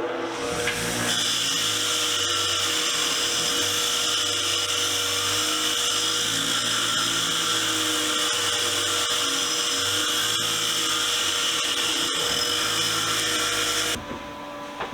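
Power-driven wire wheel running steadily, a motor hum with a hissing scratch, wire-brushing rust off old steel ratchets and a wrench. It comes up to speed in the first second and cuts off suddenly about a second before the end.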